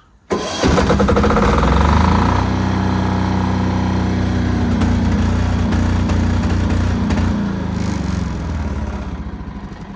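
Single-cylinder air-cooled diesel engine of a Chinese generator, a copy of the Yanmar L100, cranked and catching almost at once, then running steadily on its first run after the fuel system was bled. Its pitch and level shift slightly about seven to eight seconds in.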